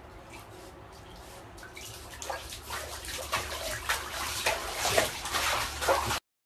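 Bath water splashing and sloshing as a Shiba Inu moves about in a filled tub: irregular splashes that grow louder from about two seconds in, then cut off suddenly near the end.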